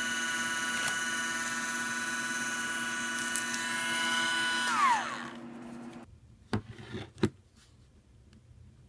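Dremel 7700 cordless 7.2 V rotary tool running with a steady high whine. About five seconds in it is switched off and winds down, falling in pitch. A few sharp clicks and knocks follow, the last the loudest.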